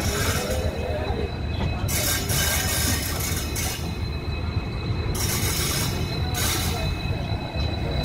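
Passenger train coach wheels crackling and squealing against the rails as the train takes a curve, over the steady rumble of the running train. Bursts of high hissing crackle come and go three times, about two seconds in, past the middle and near the end, with a faint steady squeal underneath.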